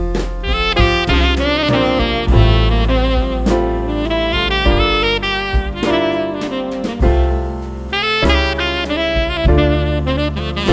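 Jazz music with a saxophone playing the melody over bass and drums.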